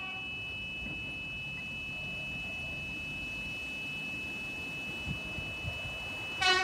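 Level crossing warning bells start up and ring as a steady high tone. About six and a half seconds in, an approaching electric suburban train sounds a brief, loud horn.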